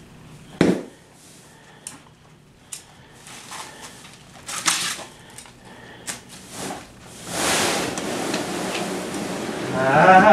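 Stiff paper wrapping crinkling and rustling as it is pulled off a rolled-up mattress, with a sharp knock about half a second in and scattered small clicks. From about seven seconds in comes a longer, louder rustle as the paper is dragged clear.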